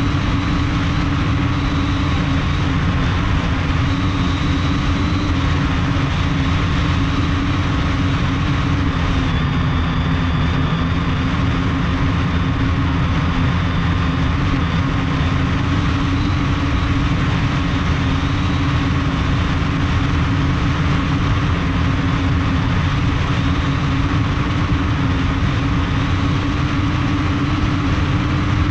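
Multirotor drone's brushless motors and carbon-fibre propellers running steadily in flight, heard from the drone's own onboard camera: a constant whine at several fixed pitches over a heavy low rumble.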